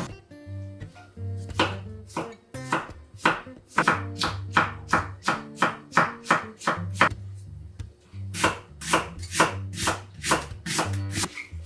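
Chef's knife chopping on an end-grain wooden cutting board: a steady run of crisp knife strokes, about three a second, slicing cucumber into thin strips, then after a brief pause the knife slicing an onion.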